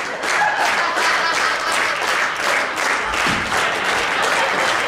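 Audience clapping together in an even rhythm of about three claps a second, a gospel-style church clap.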